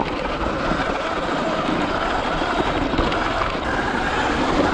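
Steady noise of a Sur Ron X electric dirt bike being ridden over loose rock and gravel: tyres crunching and rattling over stones, with wind on the rider's microphone.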